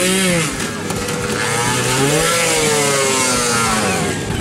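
Trials motorcycle engine revving, its pitch rising and falling back twice in long throttle blips.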